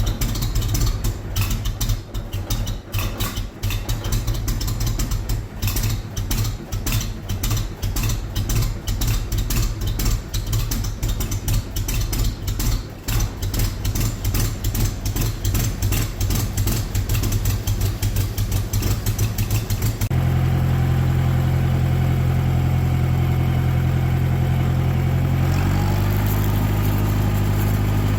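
Tractor engine running under heavy, irregular clattering and rattling. About two-thirds of the way through, the clatter stops abruptly and a steady engine note takes over, shifting up in pitch near the end.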